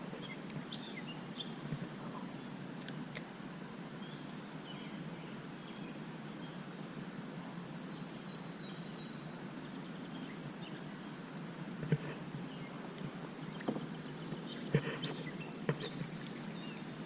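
Outdoor creekside ambience: a steady low rush of background noise with a thin, steady high tone and faint bird chirps. A few short clicks or knocks come near the end.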